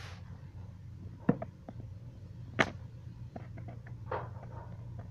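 Handling noise on a handheld camera: a few clicks and knocks over a steady low hum, a sharp one about a second in and a louder one about two and a half seconds in, then some smaller ticks.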